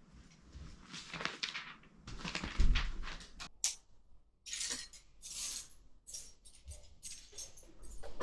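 Irregular rustling and clinking of handled plastic: LEGO pieces rattling and their plastic packaging crinkling, in short bursts with sharp clicks between.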